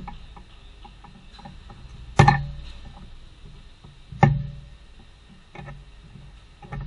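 Hand tools knocking and clicking against car parts: two loud knocks about two seconds apart, each with a short ring, among lighter taps and clicks.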